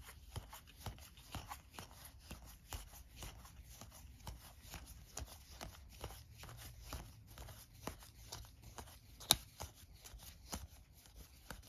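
Oversized game cards being slid off a deck one at a time by hand, each giving a faint papery click, two or three a second, with one sharper snap about nine seconds in.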